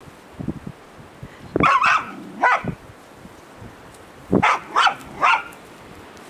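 Peruvian Hairless Dog barking: two quick bursts of three sharp barks, separated by a pause of about two seconds.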